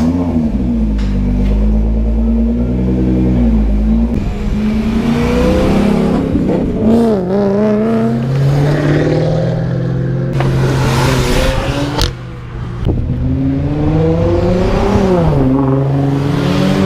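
Sports car engines on a race circuit, revving and accelerating, several engine notes overlapping and rising and falling in pitch. A sharp click and a brief drop in level come about twelve seconds in.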